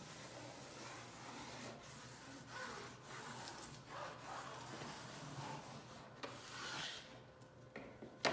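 Faint wet cloth rubbing and wiping over paper wallpaper along a seam, in uneven strokes, dampening the paper so it softens and will lie back down. A sharp tap sounds near the end.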